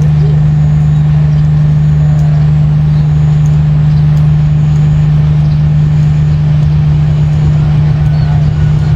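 Diesel locomotive engine running with a loud, steady low drone that holds one pitch throughout.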